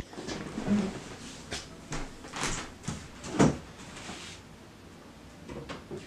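Handling and movement noises of a person moving about: a sharp click at the very start, then scattered knocks and rustles, with one louder thump about three and a half seconds in.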